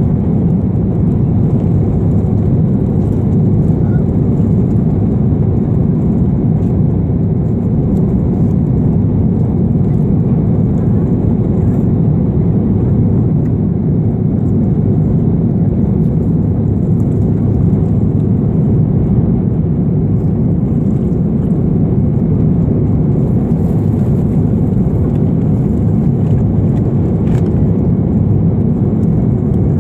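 Steady, even roar of an airliner cabin at cruise altitude, a low rush of airflow and engine noise heard from a window seat.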